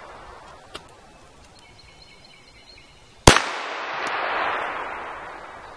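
A single 9mm pistol shot a little over three seconds in, a sharp crack followed by an echo that fades over about two seconds. A light click comes under a second in.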